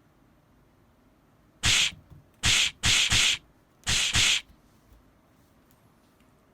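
Punch sound effects dubbed onto a cat's rapid paw swipes: six short noisy hits in quick succession, the later ones in close pairs.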